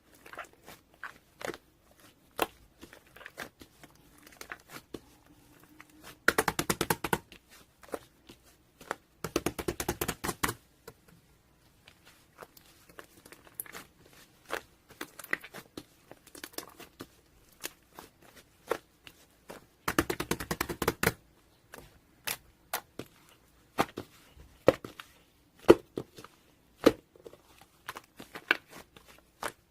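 Scattered sharp clicks and crackles, like crinkling or tapping handling noise, with three short bursts of rapid clicking.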